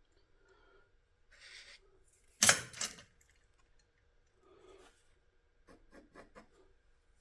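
Hands handling parts on a workbench: a sharp knock about two and a half seconds in that rings briefly, soft rustling, and a quick run of four or five clicks near the end.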